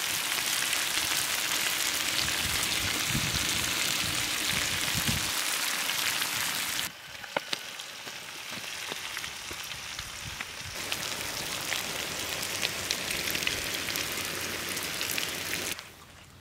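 Chicken curry sizzling in a large iron kadai: a steady frying hiss. About seven seconds in it drops suddenly to a quieter hiss.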